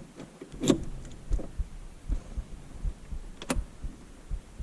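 Two sharp clicks, about a second in and past the middle, with soft irregular low thumps between them: the ignition key and dash controls being worked.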